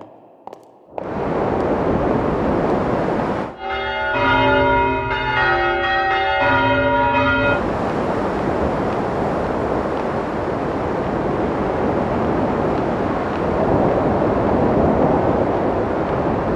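Show soundtrack of electronic sound design: one or two sharp high-heel steps in the first second, then a loud, dense noise wash. From about three and a half seconds in, a bell-like chord of many ringing tones sounds over the noise for about four seconds, then stops and the noise runs on.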